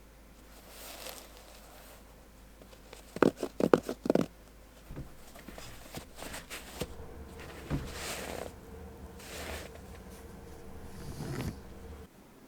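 Hands handling a pair of sneakers and their packaging: rustling and brushing, with a quick run of sharp rattling strokes about three seconds in.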